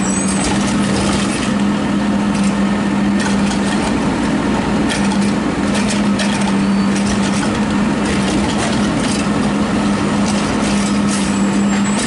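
Automated side-loader garbage truck lifting a recycling cart with its arm and dumping it into the hopper: engine and hydraulics running with a steady hum, and scattered knocks and clatter as the cart is emptied.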